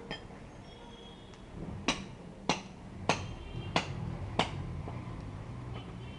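Five sharp footsteps on paving stones, evenly spaced about 0.6 s apart, starting about two seconds in.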